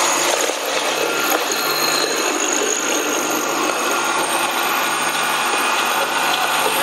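Electric-motor-driven ginger paste grinding machine running steadily while grinding ginger pieces into fine paste, a constant low hum under even, noisy running.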